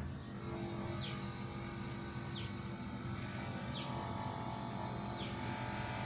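Carrier split air conditioner's outdoor condenser unit starting up: a steady low hum, with a higher tone rising from about halfway through. A short falling chirp repeats four times, about every second and a half.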